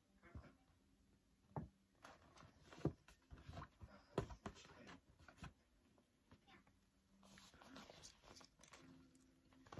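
Faint handling noises of a paper gift bag and its contents being opened: a few soft knocks and clicks, then a stretch of quiet rustling near the end.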